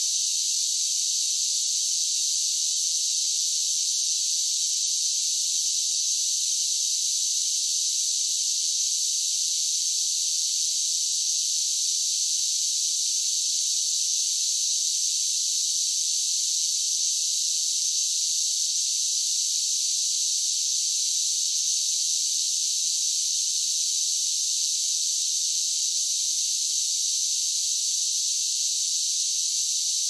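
Cicada song: a steady, unbroken high-pitched buzz that holds at the same level throughout.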